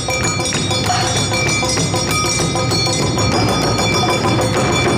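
Awa odori dance band playing the brisk two-beat parade music: drums struck in a dense rhythm under a ringing hand gong.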